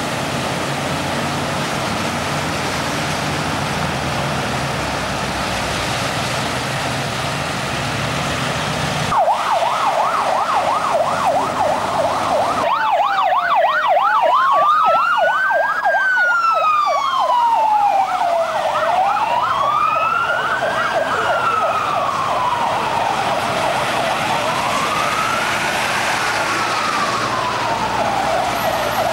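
Vehicles driving through flood water, with rushing, splashing water over engine noise. About nine seconds in, emergency vehicle sirens take over: a fast yelp of about three sweeps a second, then from about thirteen seconds a slow wail rising and falling about every five seconds.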